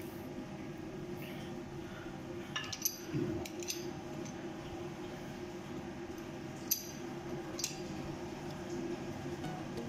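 A few sharp metallic clinks of pipe wrenches against a brass ball valve and its fittings as a PVC adapter is screwed in, over a steady low hum. Two clinks, about three seconds and seven seconds in, are the loudest.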